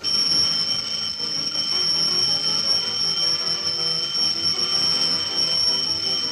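A bell ringing without a break on one high pitch, starting suddenly.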